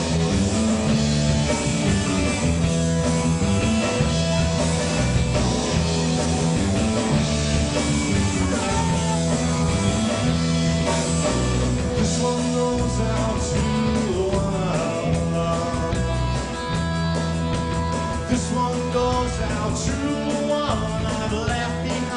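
Live rock band playing: electric guitar, bass and drums, with a voice singing at times over a repeating bass line.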